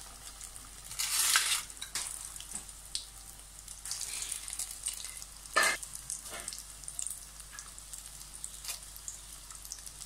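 Breaded chicken cutlets deep-frying in hot oil in a kadai, a steady sizzle. It swells louder about a second in and again just past the middle as more cutlets go into the oil.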